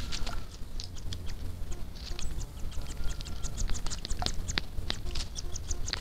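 Water splashing and pattering as a Caatinga cacholote (casaca-de-couro) bathes in a shallow pool, in quick, irregular ticks of droplets.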